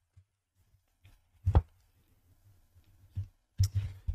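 A few light knocks and clicks from the opened plastic housing of a blood pressure monitor and its parts being handled. One comes about a second and a half in, a fainter one after three seconds, and a short run of clicks near the end.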